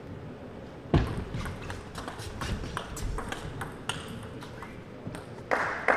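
Table tennis rally: the plastic ball clicks off the rackets and the table at an irregular pace, with the sharpest hit about a second in. A loud burst of noise comes near the end.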